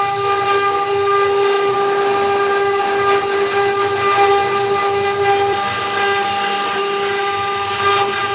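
Multi-spindle CNC wood router with its electric spindles running together, a steady high whine over the rough noise of the bits cutting into wooden blocks.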